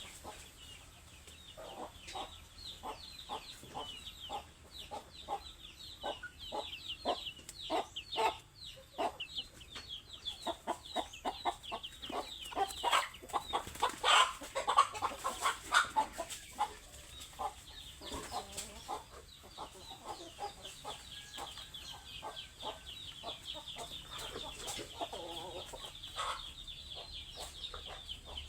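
A flock of hungry chickens clucking in rapid, overlapping calls over constant high-pitched cheeping. The clucking grows loudest about halfway through and then eases off.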